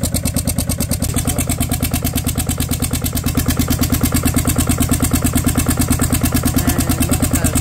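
Turbocharged, air-cooled Kohler diesel engine running steadily with an even, rapid chug. It has just been restarted after its crankcase was filled with water, and it is pushing water and sludge out of its exhaust.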